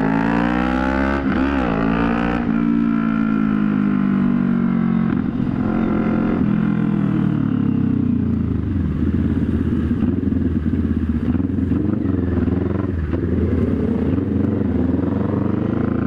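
CFMoto NK400 parallel-twin engine running through a new aftermarket exhaust pipe and muffler with no resonator, very loud. It revs up with a quick dip and jump in pitch about a second and a half in, then falls in pitch as the bike slows over several seconds. It runs low and rough for a while, and the pitch rises again near the end as it pulls away.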